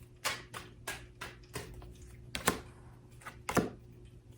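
A tarot deck being shuffled and handled: a string of sharp card snaps and slaps, two or three a second at first, then sparser, with the sharpest about three and a half seconds in.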